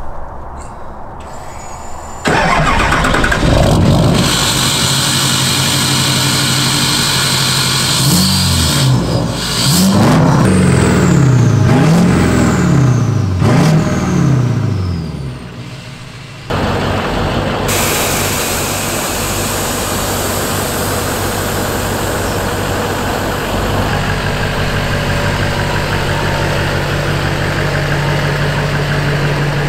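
Duramax LMM 6.6-litre turbo-diesel V8 starting about two seconds in and running, then revved up and down about five times in quick succession before settling back to steady running.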